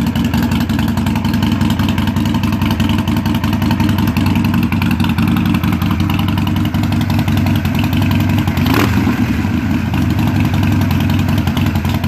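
2017 Harley-Davidson Forty-Eight's air-cooled 1200 cc V-twin idling steadily through Vance & Hines Twin Slash 3-inch slip-on mufflers, with a brief sharp sound about nine seconds in.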